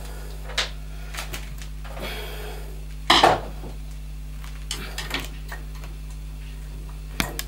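Scattered metallic clicks and clinks of a screwdriver and small screws against a gas boiler's metal fittings as the screws holding the plate heat exchanger are taken out, the loudest clink about three seconds in.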